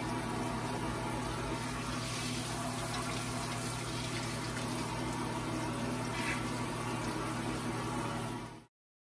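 Kitchen sink faucet running in spray mode onto mushrooms being rinsed in the sink: a steady hiss of water with a steady low hum underneath. It cuts off suddenly near the end.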